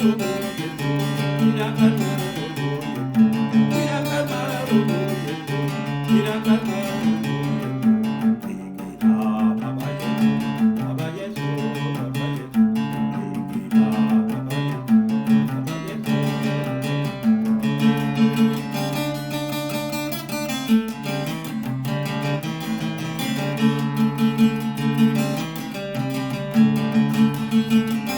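Music led by a plucked guitar, playing a steady repeating pattern.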